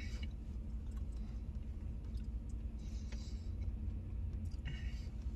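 Steady low rumble of a pickup truck's engine idling, heard inside the parked cab, with a few faint ticks.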